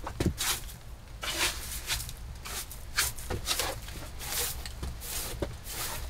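Repeated brisk swishes of a hand broom made of dried grass or straw sweeping wooden floorboards, about one or two strokes a second, with a couple of sharper knocks.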